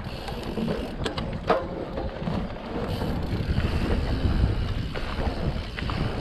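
Mountain bike rolling fast down a dirt singletrack: a steady low rumble of tyres on the trail and wind buffeting the microphone, with a few sharp clicks and knocks from the bike over bumps.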